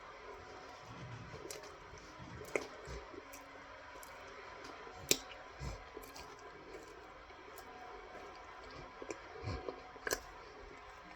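Cornstarch being chewed by mouth: soft squishing and crunching with scattered sharp clicks, the sharpest about five seconds in and again near ten seconds.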